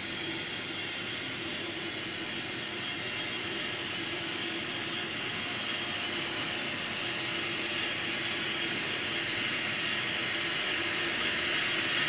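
Sound decoder in a Tenshodo HO-scale 500 Series Shinkansen model playing the train's recorded running sound as the model runs: a steady hiss with a low hum, slowly growing louder as it comes close.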